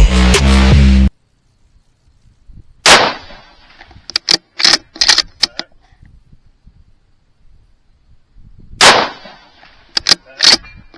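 Electronic music for about a second, cutting off suddenly; then two loud rifle shots from a 6mm Dasher precision rifle about six seconds apart, each followed a second or so later by a quick run of sharp clicks.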